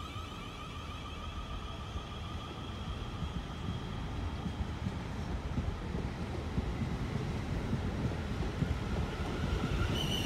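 South Western Railway Class 444 Desiro electric multiple unit pulling out of a station: the rumble of its wheels on the rails grows steadily louder as it gathers speed, with steady high electric whines from the traction equipment, a new one starting near the end.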